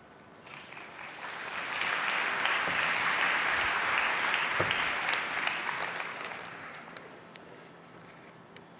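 Audience applauding, building over the first two seconds and dying away about seven seconds in.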